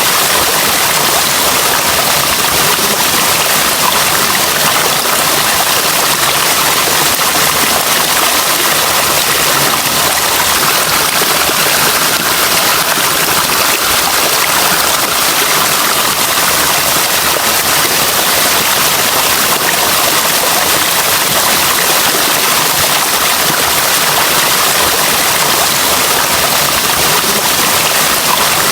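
Flowing water rushing steadily, a loud, even hiss with no pauses or changes.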